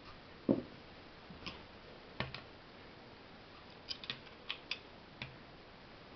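Scattered light clicks and taps of small parts being handled on an electric motor's terminal box, with one duller knock about half a second in and a quick run of clicks past the middle.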